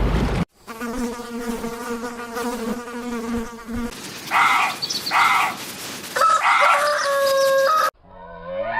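Wind-blown surf noise cuts off half a second in. A steady buzzing drone follows for about three seconds, then two short animal calls and a longer call that steps down in pitch.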